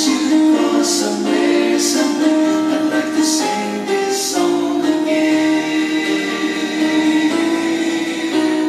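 A recorded song playing: a singing voice holding long notes over backing music.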